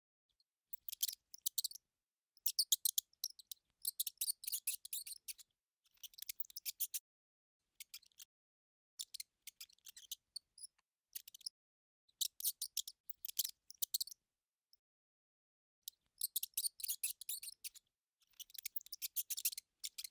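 Mouse sound effect: bursts of rapid, high-pitched scratchy clicking, each lasting about a second, repeated around ten times with silence between.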